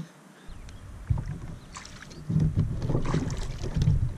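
Wind rumbling on the microphone, with water splashing and knocks against a plastic kayak's hull as it is pushed off the shallows and climbed into. The wind and splashing get louder about two seconds in.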